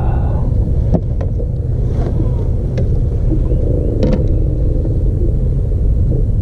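Steady low rumble of wind buffeting the microphone, with a few light clicks and knocks scattered through it.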